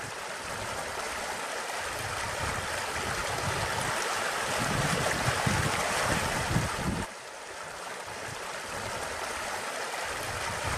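Fast floodwater of a flood-swollen river rushing past, a steady dense water noise that swells louder toward the middle and drops off abruptly about seven seconds in.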